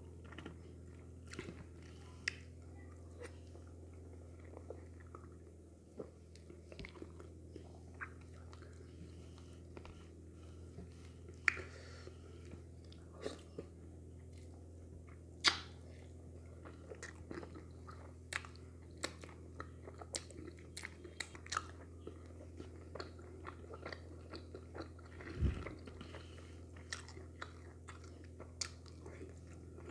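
Close-up eating sounds of wheat fufu and okra soup eaten by hand: wet chewing with many scattered sharp mouth clicks and smacks, over a steady low hum.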